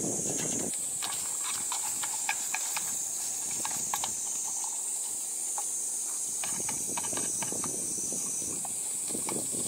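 Sliced onion and bacon sizzling in an aluminium Trangia mess tin over a gas stove, with sharp clicks as tongs knock against the tin while stirring. A lower rushing noise fades about a second in and comes back after about six seconds.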